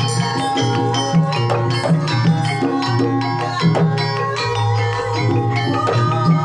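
Javanese gamelan music: hand-played kendang drum strokes in a steady rhythm over the ringing, overlapping tones of bronze metallophones and gongs.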